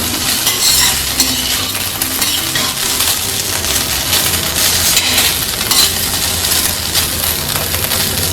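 A spatula scraping and stirring masoor dal usaiya in a hot pan while it sizzles, with a low steady hum underneath.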